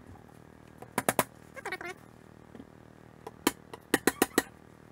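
Sharp clicks and taps of metal parts and tools being handled on a workbench during a stepper-motor swap on a rotary axis: three quick clicks about a second in and a faster run of four or five near the end, with a brief squeak between them.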